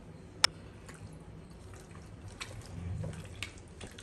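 One sharp click about half a second in, then faint, soft wet squelching and ticking as a hand kneads raw chicken pieces in a curd-and-spice marinade in a bowl.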